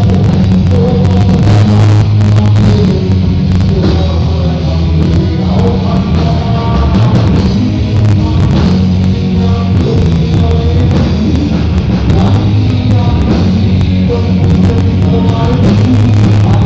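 Live rock band playing loudly: electric guitars, bass guitar and drums with a singer's voice over them, heavy in the low end.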